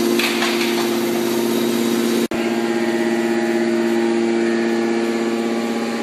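Enerpat T200XL metal baler's hydraulic power unit running with a steady hum, its pitch holding level. The sound cuts out for an instant a little over two seconds in.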